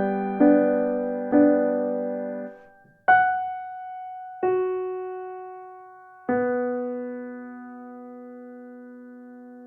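Background music ending on piano: repeated chords about once a second, then three slow single notes, the last held and fading out.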